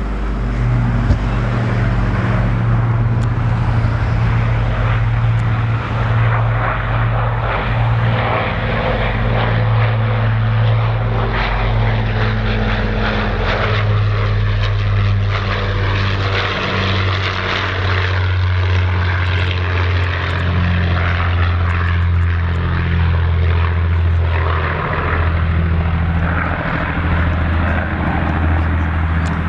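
Avro Lancaster bomber's four Rolls-Royce Merlin V12 engines droning steadily as it flies past low, the deep drone dropping slightly in pitch about halfway through as the aircraft passes and heads away.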